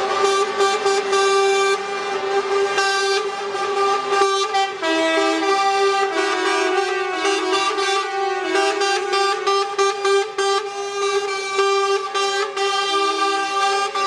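Truck air horns sounding together in a long, steady chord, with shorter repeated toots from another horn joining about five seconds in.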